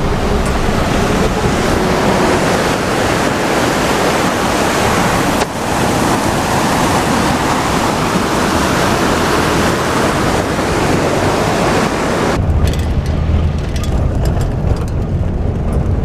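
Jeep driving on a rough dirt road: a loud, steady rush of wind and road noise. About twelve seconds in, the hiss drops away abruptly and a low engine drone remains.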